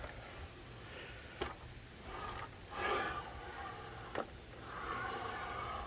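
Hercules 12 in. sliding compound miter saw being handled: two light clicks and two stretches of faint sliding noise as the saw head is run along its slide rails.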